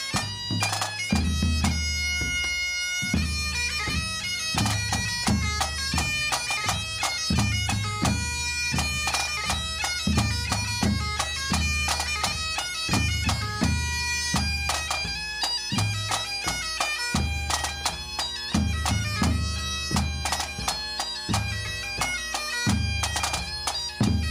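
Bagpipes playing a march tune over their steady drones, with drum strokes keeping time.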